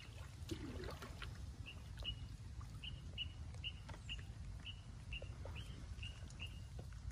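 A bird calling one short, high note over and over at an even pace, about two to three times a second, starting about a second and a half in, over a steady low rumble.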